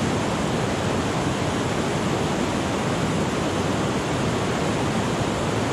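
Whitewater river rapids rushing steadily over rocks, a continuous even roar of water.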